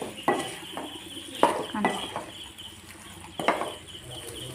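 Wooden spatula stirring thick chicken masala in a nonstick pan, scraping the pan with three sharp knocks spread over a few seconds.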